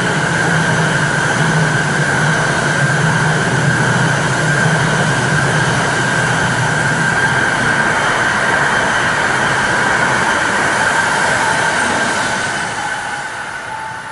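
An E5-series Shinkansen train running past: a loud, steady rush of wheels and air with a high tone held over it. It fades over the last couple of seconds as the tail goes by.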